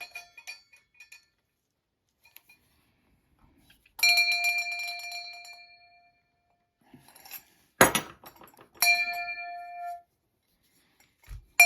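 Old brass hand bell rung by its chain-hung clapper, the chain just bent to hang straight after the repair: three separate strikes, about 4, 8 and 9 seconds in, each ringing out and fading over a second or two. The second strike comes with a sharp knock, and a few light clinks come near the start.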